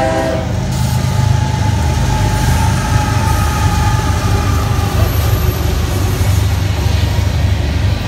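A freight train's horn cuts off about half a second in, then the deep steady rumble of the diesel-electric locomotives (a Canadian Pacific SD70ACu and a CSX unit) passing close by, giving way to covered hopper cars rolling past near the end.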